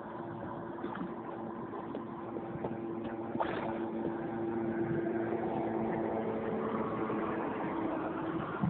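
Watercraft engine idling with a steady hum over lapping water noise, growing a little louder about halfway through.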